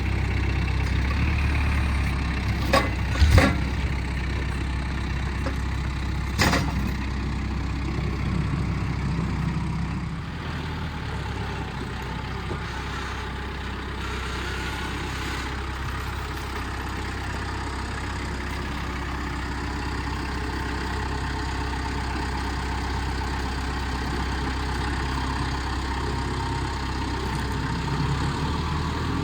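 Heavy engine running steadily, with a few sharp knocks about three seconds and six seconds in.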